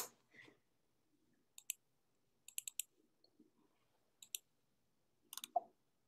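Computer mouse clicking a few times, singly and in quick pairs and triples, over near silence.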